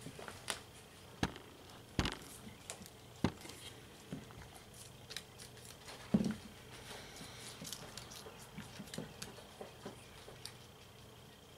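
Guinea pigs eating cucumber pieces: scattered small crunches and clicks at an irregular pace, with one louder knock about six seconds in.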